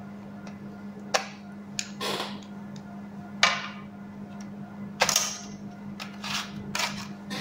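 Scattered clicks and knocks of small screwdrivers and loose parts against a laptop's plastic base and a glass tabletop while screws are undone: about nine sharp ticks, the loudest about three and a half seconds in, with a quicker run near the end. A steady low hum runs underneath.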